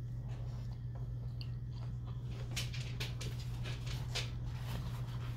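Close-up wet chewing and lip-smacking of a person eating a cheesesteak sandwich. From about halfway in it becomes a quick run of short sharp smacks and clicks, over a steady low hum.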